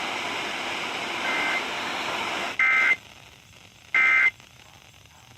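Radio static hiss, then short digital data bursts of two high alternating tones: the EAS (SAME) end-of-message code. One faint burst comes about a second in, the hiss cuts out, and two loud bursts follow about a second and a half apart.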